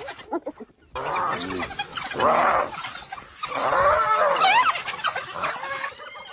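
Loud squealing cries and short high chirping calls from African wild dogs and the animal they are attacking, starting about a second in after a brief gap.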